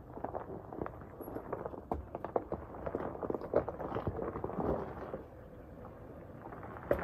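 Gravel and rocks crunching and popping under the General Grabber ATX tyres of a first-generation Toyota Sequoia 4x4 as it crawls slowly over a rocky dirt trail, an irregular run of crunches heard close to the ground.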